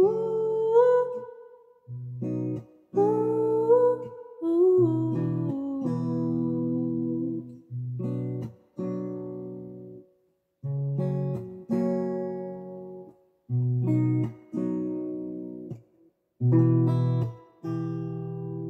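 Acoustic guitar with a capo playing chords, with a sung melody over them for the first few seconds. The chords then come in short phrases broken by brief stops, and a last chord is left to ring near the end.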